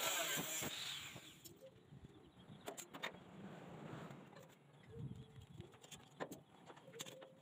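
A handheld power tool working on a stainless-steel tube frame, running for about the first second and then stopping. It is followed by a few scattered light clicks and knocks of metal being handled.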